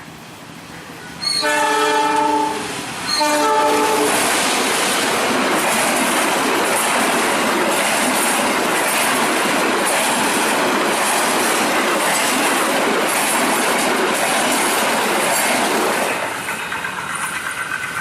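A train horn sounds two blasts, a longer one and then a short one, and the train passes close by with a loud rush of wheels and rhythmic clattering over the rail joints. About sixteen seconds in the passing noise drops away, leaving a steady high tone.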